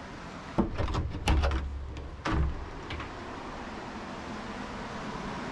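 A door being opened: a cluster of knocks and clicks with low thuds in the first three seconds, then a steady rushing background noise.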